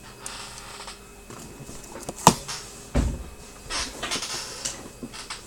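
Handling noises: soft rustling, a sharp click a little over two seconds in, and a dull thump about a second later.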